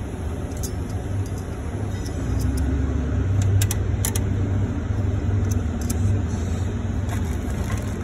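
Small steel flat washers clicking faintly as they are slipped one by one onto the fan hub studs, over a steady low rumble.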